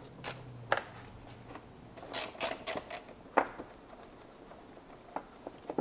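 Scattered light clicks and taps of a screwdriver backing T20 screws out of a plastic air-intake duct, with a quick run of four clicks about two seconds in.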